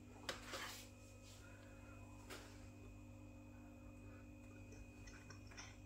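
Near silence: a steady low room hum, with a brief faint rustle about half a second in and a few soft clicks later on.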